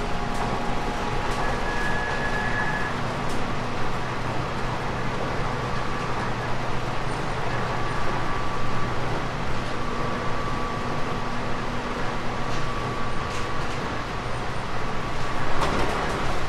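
Running sound of a JR East 719-series electric multiple unit under way: a steady rumble of wheels on rail with a faint even hum and a few light clicks.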